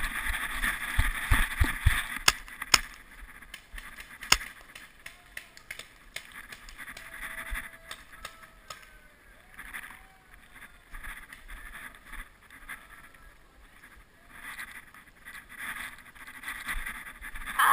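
Rustling and knocking of a body- or gun-mounted camera as a paintball player moves through the woods. Three sharp cracks come in the first few seconds, the first two about half a second apart, and then a quieter stretch of scattered rustles and taps.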